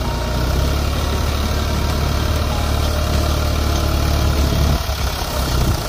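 New Holland tractor's diesel engine running steadily at working speed, driving a PTO-powered earth auger as it bores into soil. The deep engine note eases briefly about five seconds in.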